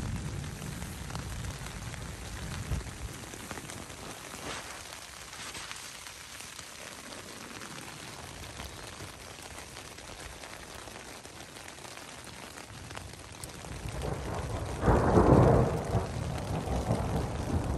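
Steady rain pattering on a surface. A louder, low rumble swells up about three-quarters of the way through and carries on to the end.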